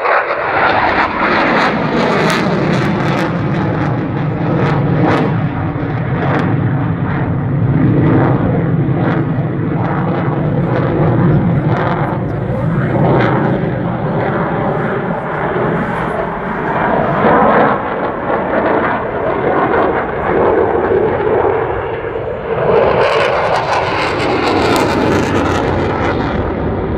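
Fighter jet flying overhead, its engine noise loud and continuous, with shifting pitch, turning harsher and hissier for a couple of seconds near the end.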